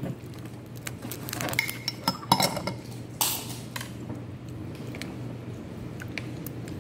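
Close-up eating sounds: a cooked crab being bitten and chewed, with scattered sharp clicks and crackles of shell over a steady low hum.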